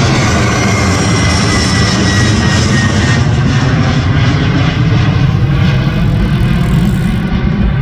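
Twin-engine jet airliner passing low overhead and moving away: a steady jet engine roar with whining tones that fall in pitch over the first few seconds, the highest part of the sound fading near the end.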